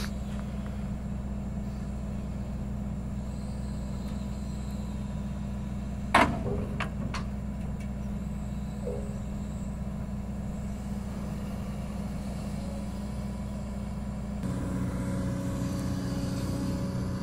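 Diesel engine of a Sany excavator running steadily, with a single sharp clank about six seconds in followed by two lighter knocks. The engine picks up and runs louder near the end.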